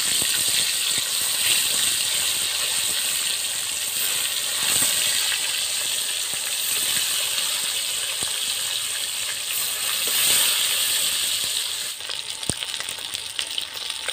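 Fish steaks frying in hot oil in a kadai: a loud, steady sizzle from fish freshly put into the oil. About twelve seconds in, it eases into lighter crackling.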